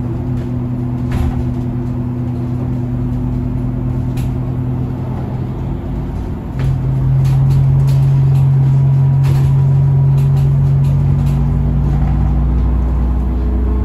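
Iveco Urbanway 18 Mild Hybrid articulated bus running, heard from inside the bus: a steady engine hum with scattered small rattles and clicks. About six and a half seconds in, the engine note grows louder and stays up, as when the bus pulls harder.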